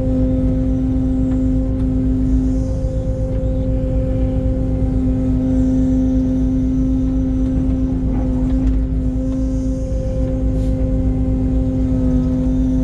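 Mini excavator's diesel engine running steadily under load at an even pitch, with no rise or fall in speed.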